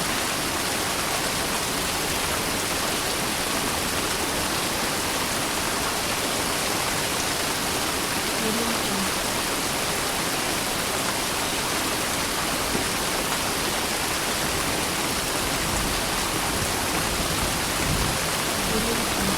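Steady, even hiss of water, like heavy rain or a waterfall, with no change in level.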